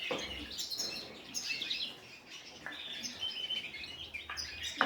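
Canaries chirping, short high calls every second or so, with a sharp click near the end.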